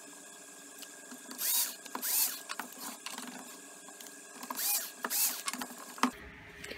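Cordless drill run in four short bursts, in two pairs, its motor whirring up and back down each time as it bores pilot holes into an MDF disc. A small click near the end.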